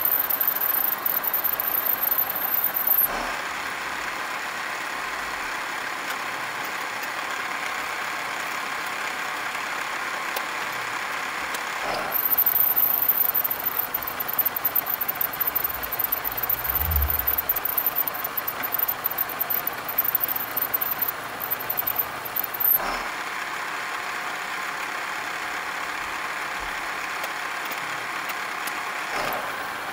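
Vertical milling machine running with an end mill slotting a metal block held in a machine vise. The cutting noise comes and goes in passes: louder and rougher at the start, again for about ten seconds in the middle, and once more near the end, with the steadier hum of the machine between.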